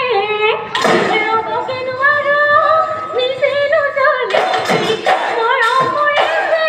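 Bihu song: a woman's voice singing held, gliding notes over dhol drums, with a drum stroke about a second in and steady dhol beats from about four seconds in.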